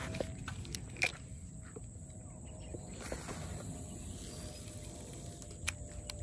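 Outdoor ambience with low wind noise on the microphone and a faint steady hum, broken by two sharp clicks, one about a second in and one near the end.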